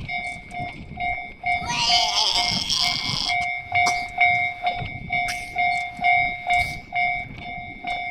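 Japanese level-crossing alarm ringing its electronic bell tone, the same note pair repeated evenly without a break, while a train rumbles past. About two seconds in, a loud hissing burst lasts over a second.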